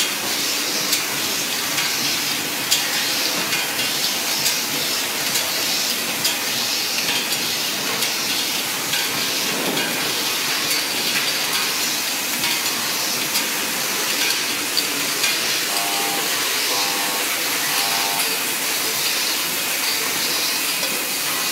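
Automatic cap hot stamping machine running: a steady hiss with frequent clicks and clacks from its indexing turret and stamping head. About three quarters of the way through come three short beeps, about a second apart.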